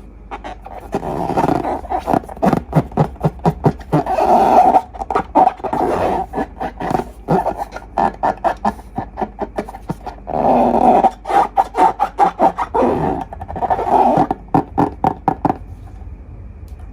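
Slime being squeezed in long balloons: rapid crackling and squelching with rubbery, growl-like squeaks, in two long spells.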